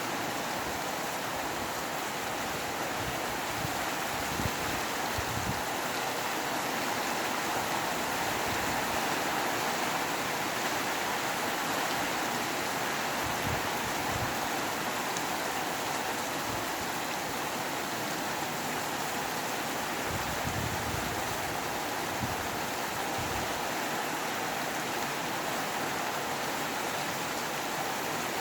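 Steady rain with wind: an even, unbroken hiss, with faint low rumbles now and then.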